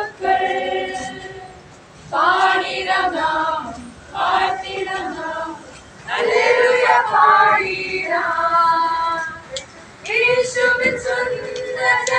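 A group of children and women singing together, in short phrases with brief pauses between them.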